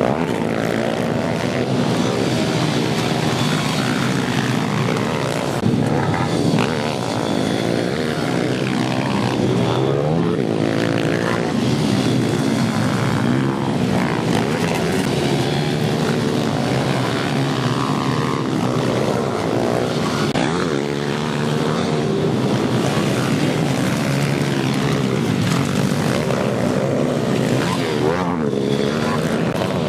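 Several pit bikes racing together, their small engines buzzing and revving up and down as the riders accelerate and pass.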